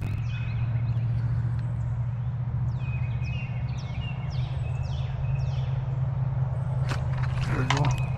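A bird singing a run of quick, downward-sliding whistled notes, about two a second, over a steady low hum. A few sharp clicks and rustles near the end.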